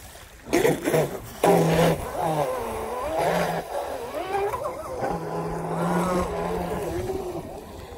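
Pro Boat Sonicwake V2 RC speedboat running fast across the water on its brushless electric motor, its whine rising and falling in pitch as it goes.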